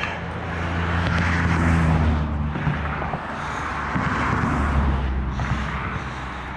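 Road traffic passing by, a steady rumble of tyres and engines that swells twice as vehicles go past.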